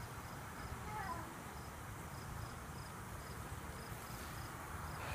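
An insect chirping in an even rhythm of short, high chirps over a faint steady hiss. A child's voice rises and falls briefly about a second in.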